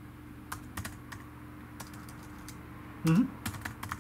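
Sparse keystrokes on a computer keyboard: single taps spread out, then a quicker cluster near the end, over a faint steady hum. About three seconds in, a short voiced sound rising in pitch, like a brief 'hm', is the loudest sound.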